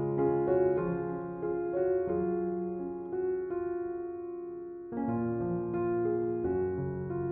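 Soft background piano music: slow single notes over held chords, with a new chord struck about five seconds in.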